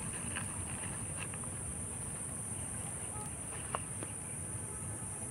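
A chorus of insects making a steady high-pitched drone, over a low rumble, with a few faint clicks.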